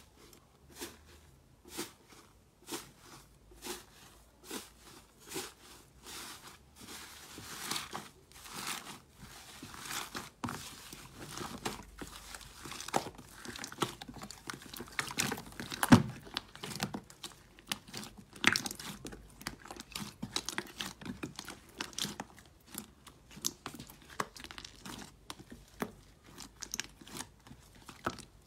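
Slime pressed and squeezed by hand in a plastic tub. For the first several seconds there are separate crunchy presses about once a second. Then comes a dense run of crackling and squishing as it is kneaded, with one loud pop about halfway through.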